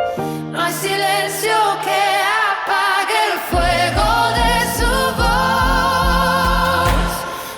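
Modern Christian worship song: sung vocals with vibrato over the arrangement. A steady low beat comes in about three and a half seconds in.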